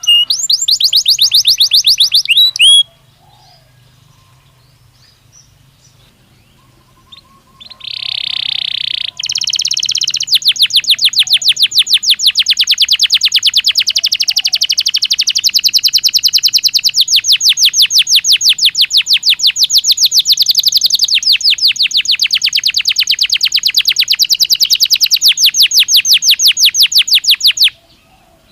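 Domestic canary of the Belgian type singing: a rapid trill, a pause of a few seconds, a short held note, then a long rapid trill of many quick repeated notes lasting over fifteen seconds that stops abruptly near the end.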